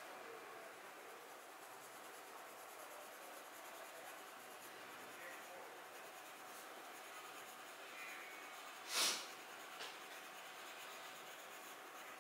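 Faint, steady scratching of a crayon shading on paper, with one short, louder rush of noise about nine seconds in.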